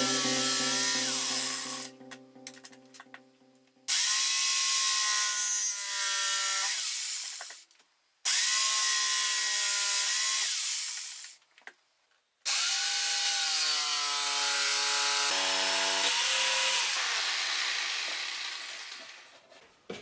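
Jigsaw cutting a wooden beam, running in four separate bursts of several seconds each with short pauses between. The motor's pitch shifts as each cut starts and ends.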